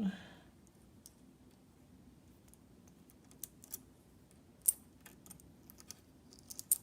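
Light, scattered metal clicks and clinks of a metal electrical cable clamp connector being handled and fitted to a box. A sharper click comes about four and a half seconds in, and the clicks come thicker near the end.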